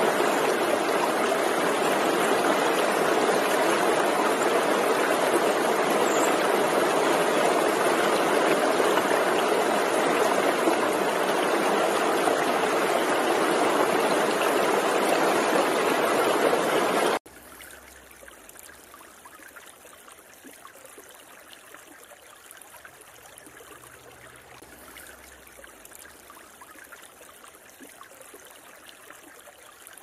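Stream water rushing over rocks in a steady, even rush. About 17 seconds in it cuts abruptly to a much quieter, gentler flow of water, like a small brook.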